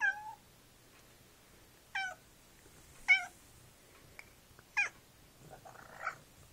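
Tabby cat meowing four times in short calls that each fall in pitch, begging for a green olive held out to it. A softer, rougher sound follows near the end.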